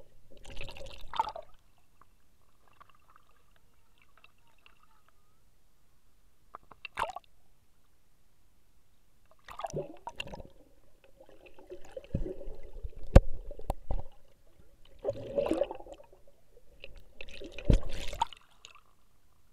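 Pool water heard through a camera held underwater: muffled sloshing and gurgling in about six short bursts with quiet gaps, and one sharp click partway through.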